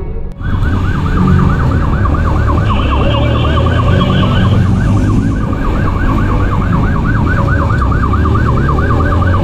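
Police motorcycle siren on a fast yelp, rising sweeps about five times a second, over the motorcycle's engine running underneath; it cuts in abruptly just after the start.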